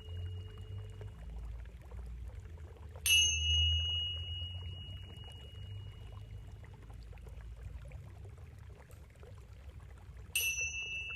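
A high-pitched metal chime is struck twice, about seven seconds apart, and each strike rings out and fades over several seconds. Steady running water trickles underneath.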